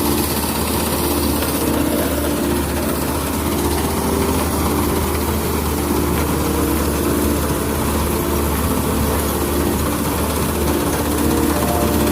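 Rice combine harvester running steadily under load, its engine and threshing machinery giving a continuous mechanical drone with a dense hiss.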